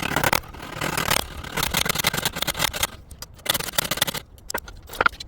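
Rough scraping and rasping strokes in a few long runs as a hole is worked through an old leather strap for a small rivet, with a few sharp clicks near the end.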